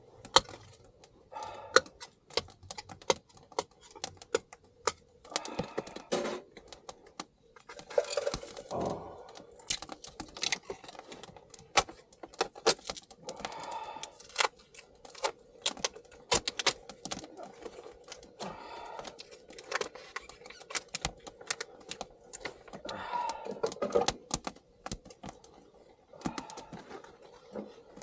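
Firewood burning in a small portable camp stove, crackling with irregular sharp pops and snaps.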